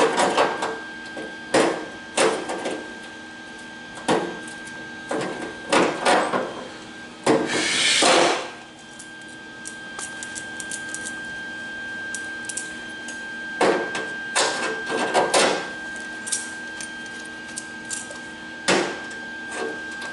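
Welder laying short tack welds on the thin steel door skin of an MGB door: a string of brief crackling welding bursts, one lasting about a second, with a pause of several seconds in the middle.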